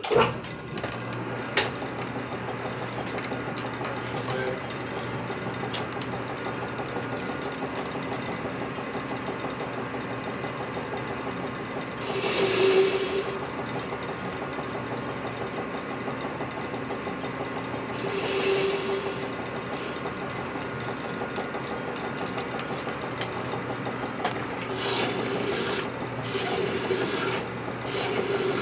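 Metal lathe running steadily while a steel part spinning between centers is worked to put a radius on its edge, giving a continuous rasping scrape. The scrape swells louder about twelve and eighteen seconds in, and near the end comes as a run of repeated strokes.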